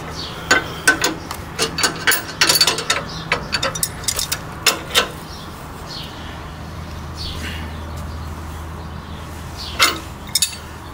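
Steel wrenches clinking and clicking against a sway-bar end-link jam nut and heim joint as the nut is tightened. A quick run of sharp metal clicks comes in the first five seconds, and a couple more near the end.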